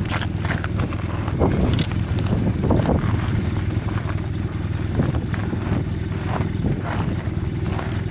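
Strong wind buffeting the microphone: a steady low rumble with gusty rustling on top.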